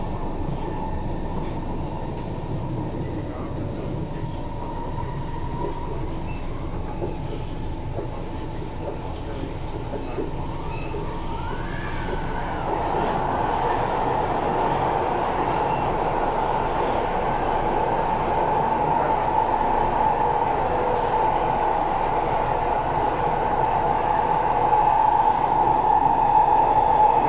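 Cabin noise of an SMRT C151 metro train running: a steady rumble with a high steady whine. About twelve seconds in, it grows louder as the train runs from open air into the tunnel.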